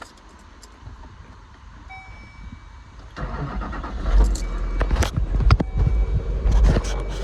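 Chevy Silverado 3500's 6.6L Duramax V8 diesel starting about three seconds in and then running at idle. Before it starts there is jingling of keys and a short high chime.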